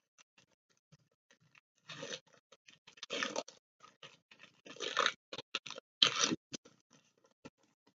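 Foil wrapper of a Pokémon Evolutions booster pack crinkling and tearing as it is opened, in several short bouts of crackling with quieter rustles between.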